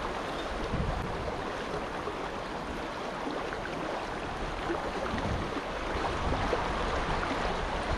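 Steady rush of flowing river water, with occasional low wind buffeting on the microphone.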